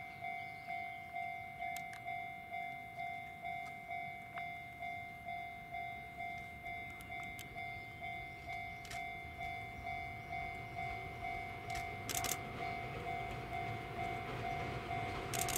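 Railway level-crossing warning bell ringing, about two decaying dings a second, while a Chichibu Railway 7500 series electric train approaches. From about twelve seconds in, the train's running rumble grows louder, with sharp clicks from its wheels on the track.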